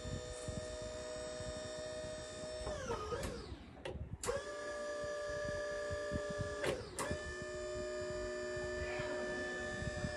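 Electric motor of a lithium-battery walk-behind stacker forklift whining steadily, winding down in pitch and stopping about 3 s in, then starting again with a click a little after 4 s and running on, with two sharp clicks close together near 7 s.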